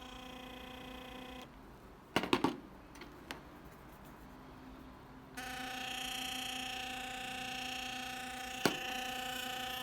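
Sonicare DiamondClean electric toothbrush's sonic drive running with a steady buzz, its loosened internal screw now tightened. It stops about a second and a half in, a few clicks follow, and it starts buzzing again, louder, around five seconds in, with one sharp click near the end.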